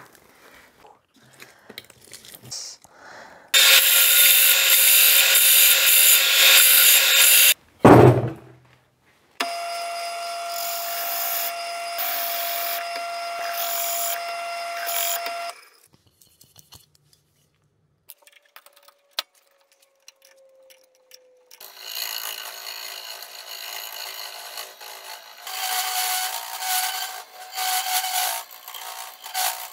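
Workshop tool sounds in stages. First, quiet handling, then about four seconds of loud power-tool noise and a single thud. Next, a drill press bores into cured epoxy resin with a steady motor whine for about six seconds, and after a short lull a wood lathe spins the resin-and-leaf bowl blank while a gouge cuts it, through the last eight seconds.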